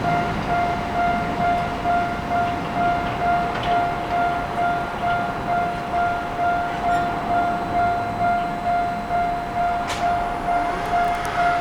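Japanese railway level-crossing warning bell ringing its repeating electronic clang, about three strikes every two seconds, over a low rumble.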